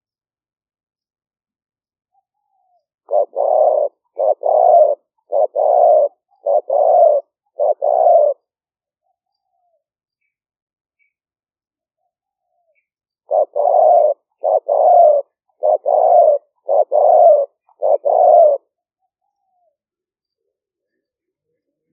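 Spotted dove cooing: two phrases of about five or six short coos each, several seconds apart. It is a decoy bird's call of the kind played to lure wild spotted doves.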